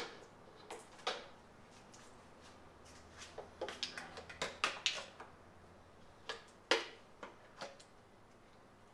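Irregular sharp clicks and light knocks of hand tools and parts being handled, several in quick succession through the middle and a louder one about two-thirds through.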